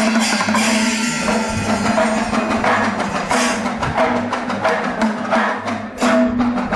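Kerala temple festival drumming: fast, dense percussion with sharp repeated strokes over a steady held note.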